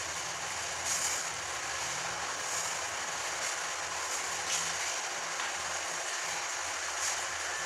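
Steady room noise: an even hiss with a faint low hum underneath, and a few soft, brief sounds.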